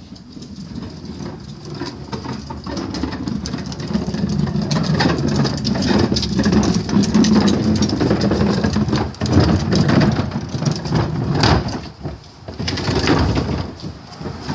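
Wheeled plastic garbage bin being moved, a loud low rumble with irregular knocks and clatters that builds over the first few seconds and breaks off briefly about twelve seconds in.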